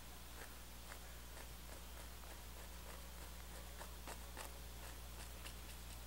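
Faint, scratchy strokes of a small brush on an oil-painted canvas, about two a second, over a steady low hum.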